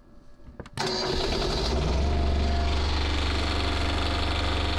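A boat's Next Gen marine generator starting from its panel switch: a couple of clicks, then about a second in the engine kicks into life and settles into a steady running hum.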